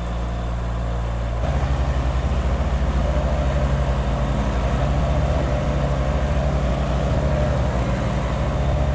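Mini skid steer engine running steadily. About a second and a half in its note changes and gets a little louder, with a fast pulsing beat, as the machine works the gravel.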